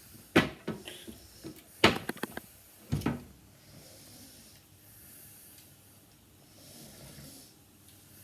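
AA batteries being loaded into a lightsaber's plastic battery compartment: a few sharp clicks and knocks over the first three seconds, the loudest about two and three seconds in, followed by only faint rustling.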